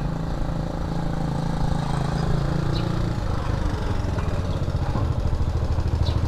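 A motorcycle engine running at a steady low pitch, slowly getting louder as it comes closer.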